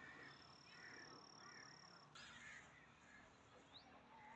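Faint bird calls outdoors: a run of short harsh calls about every half second, with a thin steady high tone for about two seconds and a brief rising chirp near the end.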